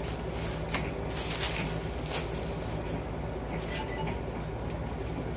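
A few soft rustles of sheer organza suit fabric being handled and moved, over a steady low hum.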